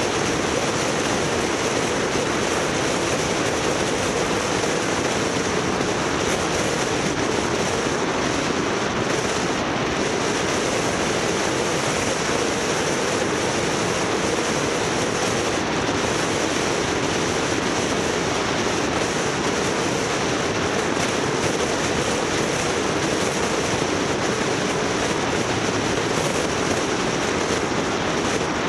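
Steady road noise of a moving vehicle: a continuous rushing hiss with a low hum under it, unchanging throughout.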